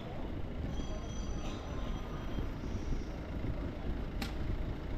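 Steady low rumble of city street noise with passing traffic, and a sharp click about four seconds in.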